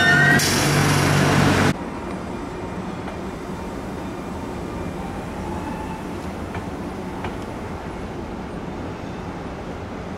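Electric commuter train pulling out, its traction motors whining and rising slightly in pitch over loud rolling noise; the sound cuts off abruptly under two seconds in, leaving a much quieter, steady station background with a couple of faint ticks.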